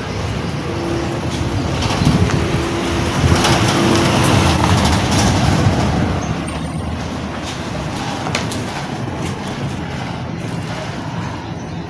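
A motor vehicle's engine noise nearby, growing louder over a few seconds and then fading away.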